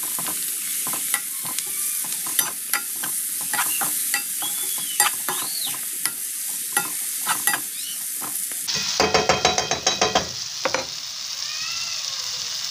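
Chopped vegetables and tomatoes sizzling in hot oil in a kadai while a spoon stirs them, scraping and tapping against the pan. About nine seconds in, the stirring turns into a louder run of rapid strokes for a couple of seconds.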